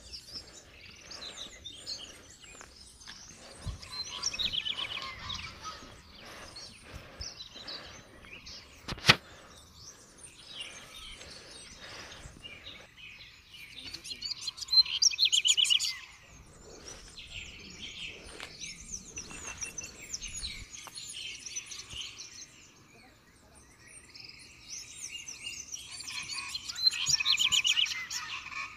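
Forest birds calling and chirping, with loud bursts of rapid chattering trills about four seconds in, around fifteen seconds and again near the end. A single sharp click sounds about nine seconds in.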